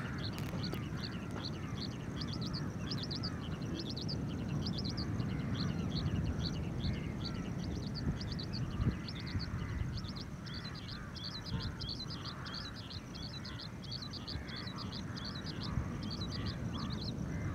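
Oriental skylark calling: a long, unbroken run of rapid, high chirping notes over a steady low rumble.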